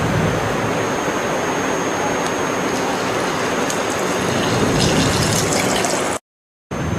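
Steady hiss-like background noise with a faint high steady whine, broken by a sudden half-second of total silence near the end.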